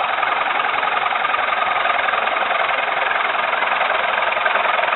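Gouge cutting the inside of a wet green-wood hat blank spinning on a wood lathe: a steady, even cutting noise.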